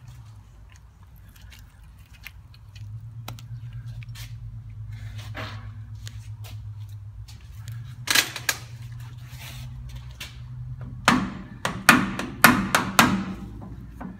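Steel hammer striking the nut-capped studs on a Land Cruiser swivel hub's steering knuckle arm to knock the cone washers loose. There are two sharp strikes about eight seconds in, then a quick run of about six strikes near the end, over a low steady hum.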